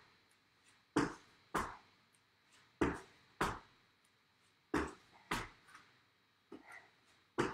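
Trainer-shod feet landing on a hard floor during squat thrusts: pairs of thuds about half a second apart, as the feet jump back and then jump in, repeating about every two seconds.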